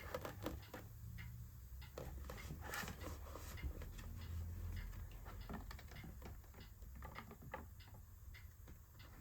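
Faint, irregular small clicks and rustles of hands laying double-sided adhesive tape on an iMac's frame, over a steady low hum.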